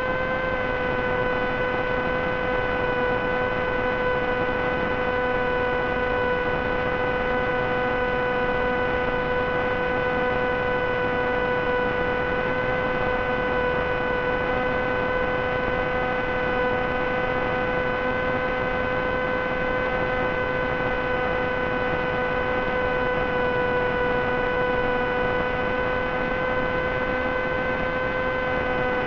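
Brushless motor (Multistar Elite 2204) and 6x3 propeller of a Wing Wing Z-84 flying wing running steadily at cruise throttle: a constant pitched hum with overtones, dipping slightly in pitch about half a second in.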